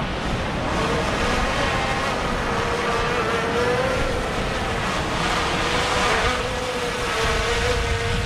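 Hubsan Zino 2 quadcopter's propellers humming as it descends for a landing: a steady whine whose pitch wavers slightly, over wind rumble on the microphone.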